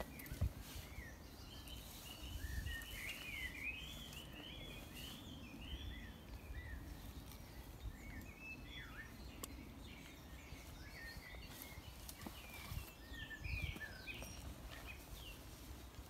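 Small birds singing in woodland, a continuous run of quick twittering chirps, over a low steady outdoor rumble, with a few brief knocks and rustles.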